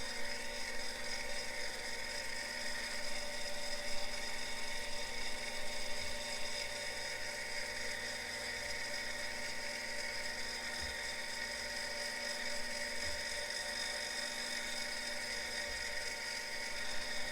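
Harig Super 612 surface grinder running steadily: an even, high-pitched whine from the spinning grinding wheel and its spindle, with several steady tones and a few faint low knocks.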